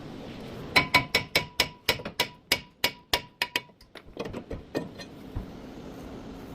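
A hammer striking metal in a quick run of about fifteen ringing blows, roughly four a second, that thins out and stops about four seconds later.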